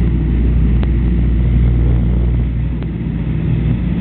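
Douglas DC-3's twin radial piston engines and propellers droning steadily and loudly, with a low, even throb.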